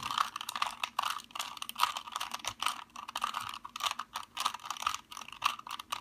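Plastic 2x2x2 Rubik's Cube having its layers turned quickly through a solving algorithm: a dense, uneven run of many short plastic clicks and clacks as the faces snap round.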